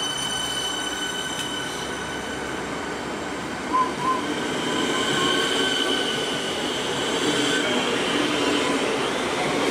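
Melbourne Metro suburban electric train pulling away from a platform: its traction motors give steady high whining tones that rise gently in pitch as it gathers speed, under a swelling rumble of wheels on the rails. Two short high chirps come about four seconds in.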